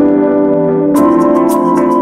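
Background music: a held keyboard chord, then a beat with sharp percussion hits about a second in.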